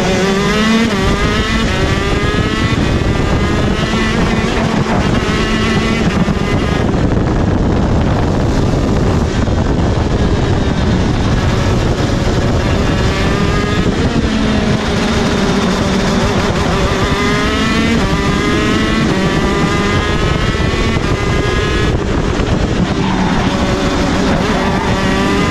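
KZ2 shifter kart's TM R1 125 cc two-stroke engine at full race pace. Its pitch climbs in steps as it is shifted up through the gears, then falls back as the kart brakes for corners, several times over.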